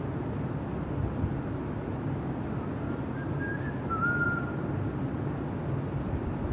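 Steady low rumble of background noise, with a short high whistle about three to four seconds in.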